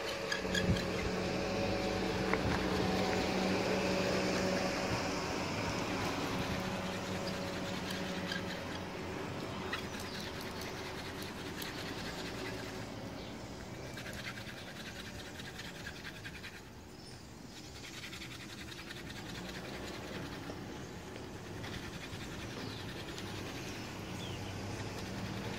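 Fire-by-friction hand drill: a wooden spindle spun back and forth between the palms, rubbing against a wooden hearth board without pause. A low steady hum runs under it for the first several seconds.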